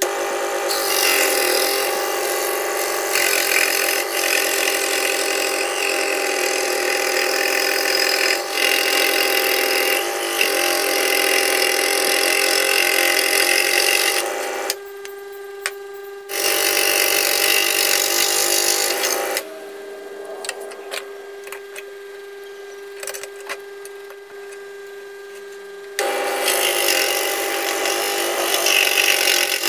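Scroll saw running with its blade cutting through thin wood in long stretches as small round pieces are sawn out, over a steady hum. The cutting noise drops away twice for a few seconds, leaving only the hum.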